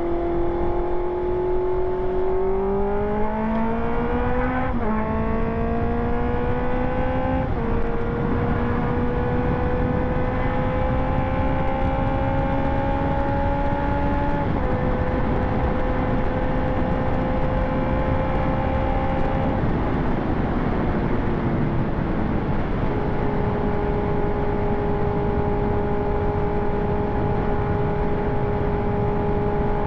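2020 Honda CB650R inline-four running through an SC Project aftermarket exhaust while riding: it pulls up through the gears with rising pitch and quick shifts at about 5, 7.5 and 14.5 seconds in. It holds steady, eases off with falling pitch around 20 seconds in, then cruises at a steady note, with road and wind noise underneath.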